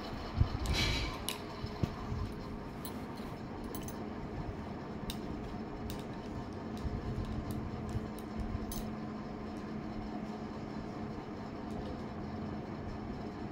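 Bangles on a wrist clinking faintly now and then as a woman combs her hair, over a steady low hum and the rumble of a handheld phone, with a scratchy rustle of the comb about a second in.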